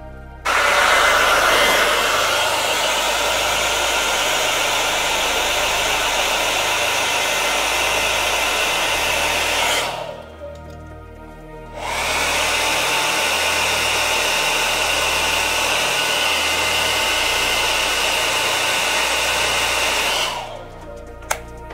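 Hot-air blower running in two long stretches, each about eight to nine seconds, switched on and off abruptly with a short gap between them.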